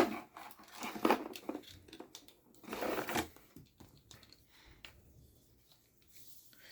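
Handling noise from unpacking a weather radio: scattered clicks and short bursts of rustling, the loudest about a second in and again around three seconds in, fading toward the end.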